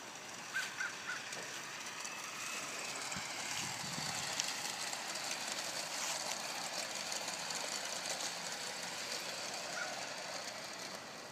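Garden-scale model train running along an outdoor track, a steady rolling noise of wheels and motor that grows louder as it comes closer and eases off again near the end.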